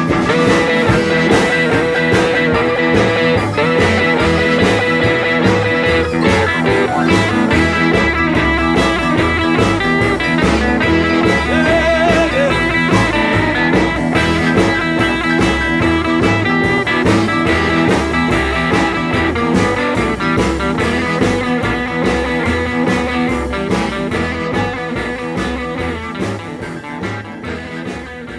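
Blues-rock band playing an instrumental passage, guitar over bass and drums with a steady beat, fading out over the last few seconds.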